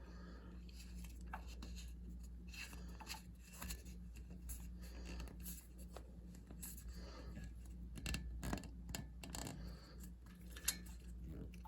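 Faint handling of electric motor wiring: rubbing and small clicks as wire leads and their connectors are pushed into place in the motor's terminal box, over a steady low hum.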